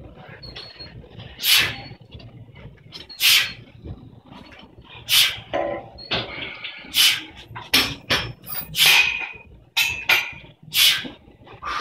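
A lifter's sharp, forceful breaths during a heavy barbell front squat set, one burst for each rep. They come about every two seconds at first and closer together in the second half.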